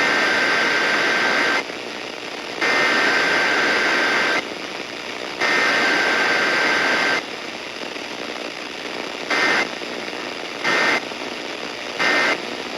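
Emergency Alert System SAME digital data bursts, heard over a steady radio hiss. Three long bursts about a second apart are followed a couple of seconds later by three short end-of-message bursts. A header and end-of-message with no attention tone or voice between them is typical of a Required Weekly Test.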